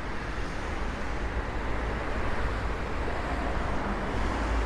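Steady city street noise: a continuous rumble of road traffic, with no single event standing out.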